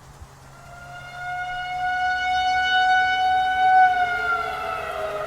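Outdoor civil defense warning siren wailing: it swells in, holds one steady high note, then begins to wind down in pitch near the end.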